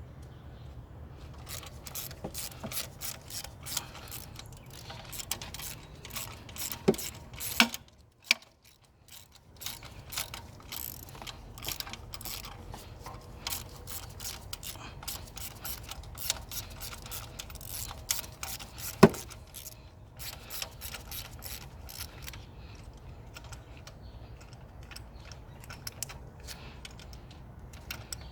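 Hand tools clicking and clinking, irregular ratchet-like clicks, over a steady low hum that drops out briefly about eight seconds in.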